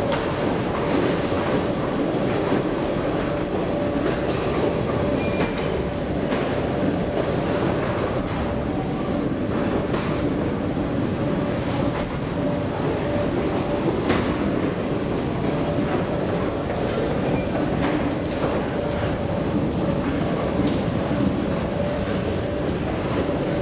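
Steady rumbling din of an underground metro station with a constant hum, a few faint clicks, and two very short high pips.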